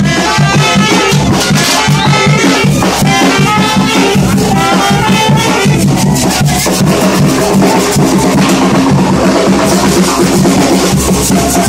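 Loud music with a steady drum beat. A melody line plays over it and fades out about six seconds in.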